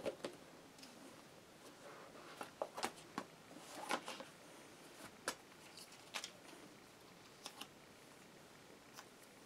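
Faint rustling and light clicks of a smartphone box's card and paper inner packaging being lifted out and handled, with about a dozen short, sharp taps scattered through.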